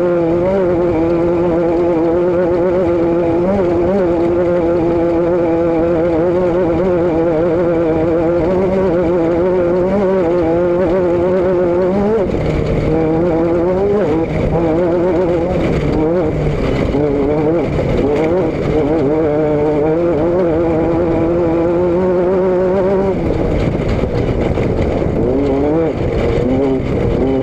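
Vehicle engine running continuously, its note wavering, with the pitch rising and falling more from about halfway through.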